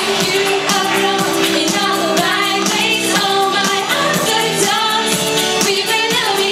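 Pop song with a steady beat, playing loudly, with sung vocals over the backing track.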